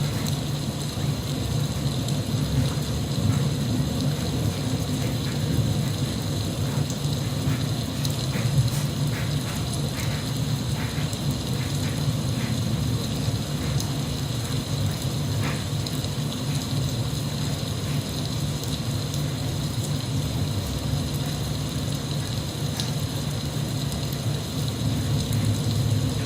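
Steady rain, a dense even hiss with a low rumble and scattered small drop ticks.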